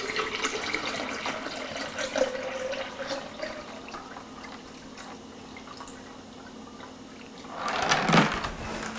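Water poured from a plastic jug into a blender jar, the splashing tapering off over the first few seconds. A brief louder noise comes near the end as the jug is lifted away.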